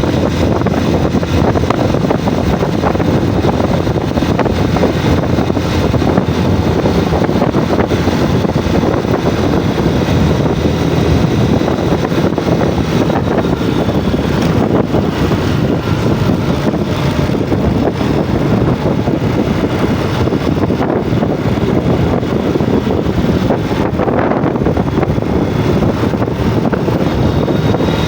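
Yamaha Jupiter MX motorcycle running while being ridden, mixed with steady wind buffeting on the microphone.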